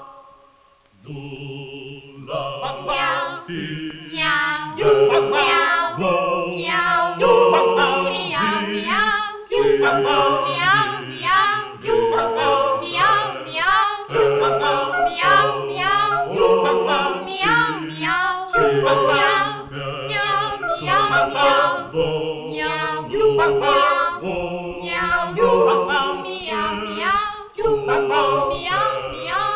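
Unaccompanied vocal ensemble singing a lilting melody with wavering high voices over a held low line. It breaks off briefly about a second in, then carries on.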